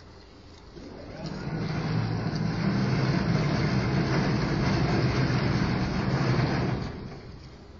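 A motor engine passing close by: its low hum and hiss swell up about a second in, stay loud for about five seconds, then fade away near the end.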